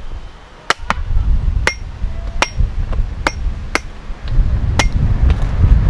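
Machete chopping the top off a young green coconut: about seven sharp, separate blows over some four seconds. A low rumble in the background grows louder near the end.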